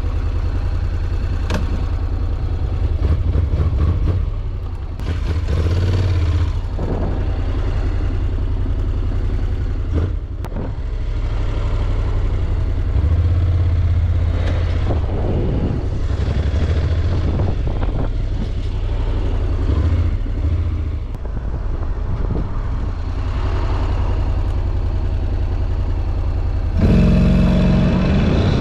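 Honda NC750XD's 745 cc parallel-twin engine running at low speed, its pitch rising and falling as the bike is ridden slowly. Near the end it jumps suddenly louder and higher as the bike launches into a full-throttle 0-100 km/h acceleration run.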